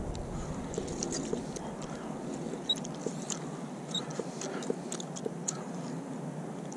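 Faint, irregular clicks and scraping handling noise over a low, steady outdoor hiss.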